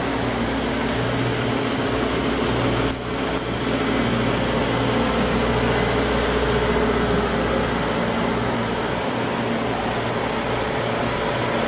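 Diesel engines of a line of semi trucks running steadily, a low even drone. About three seconds in there is one brief high-pitched squeak.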